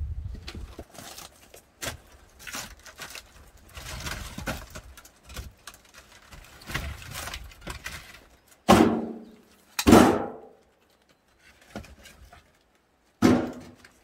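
Split firewood logs being dropped and stacked into a metal wheelbarrow: a run of wooden knocks and clatters, with two loud hits about nine and ten seconds in that make the tray ring briefly, and another near the end.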